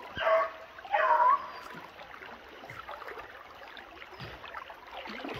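An American foxhound baying: two short, high calls bending in pitch, about a second apart. After them only the faint trickle of running water is heard.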